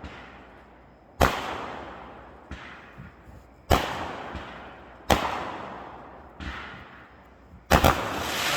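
Fireworks bursting overhead: a sharp bang every one to two and a half seconds, each trailing off in a long rumbling echo, with smaller pops between and a quick pair of bangs near the end.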